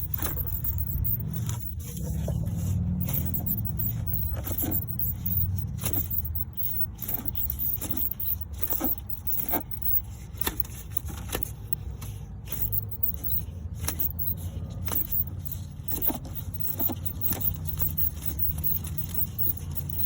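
A car engine running steadily with its accessory belt off, with irregular clicks and scraping sounds over it every second or so.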